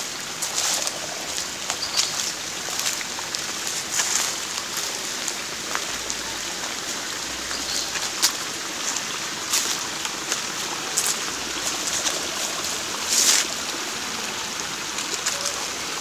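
Steady rush of running water, with scattered short clicks and crackles throughout, the loudest about 13 seconds in.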